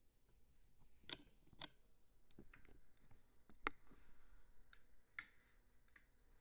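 Faint, close-miked clicks and taps at an uneven pace, about ten of them, the sharpest one a little past the middle.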